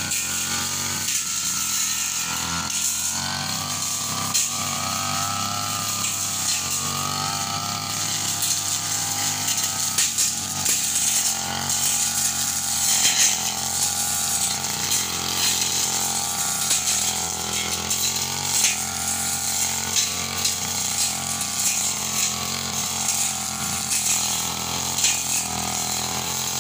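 Backpack brush cutter's small petrol engine running steadily at working speed, its pitch wavering up and down as the blade cuts through undergrowth.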